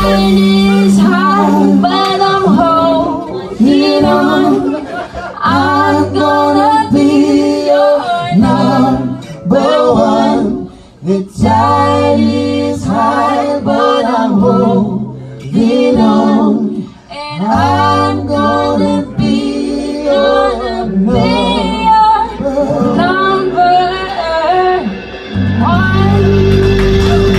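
Live reggae band playing: a woman and a man singing over acoustic guitar, keyboard bass and a drum kit.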